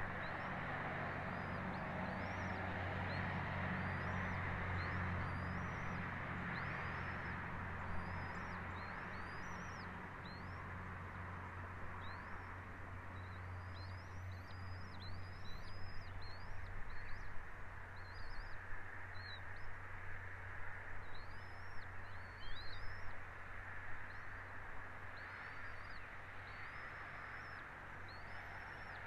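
A bird giving many short, high-pitched chirps, each rising and then falling, in irregular runs, over a steady hiss and a low hum.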